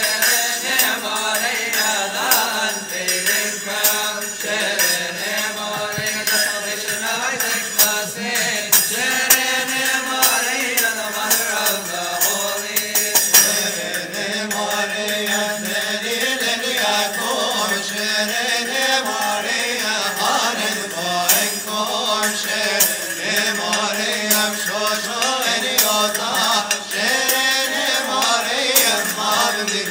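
Coptic Orthodox liturgical chant, a melismatic sung melody that wavers up and down, accompanied by frequent metallic percussion strikes.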